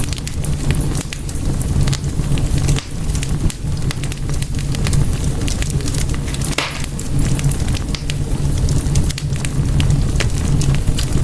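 Wood fire in a fireplace crackling, with frequent sharp pops and snaps over a steady low rumble of flames, and one stronger pop a little past the middle.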